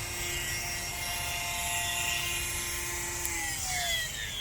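Dremel rotary tool with a sanding pad running at a steady high whine while grinding a dog's toenail, then switched off about three seconds in, its pitch falling as the motor spins down.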